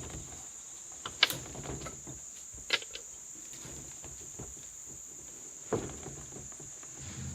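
Insects chirring steadily at a high pitch, with three sharp knocks about one, three and six seconds in, the first the loudest.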